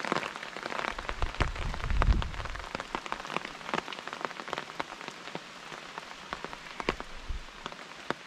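Rain falling, with irregular sharp raindrop taps close by over a steady hiss of rain. A low rumble swells and fades between about one and two and a half seconds in.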